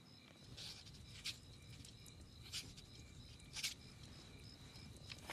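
A pen scratching and paper rustling as a document is signed: four short scratchy rustles. Under them runs a faint, even chirping of about three chirps a second.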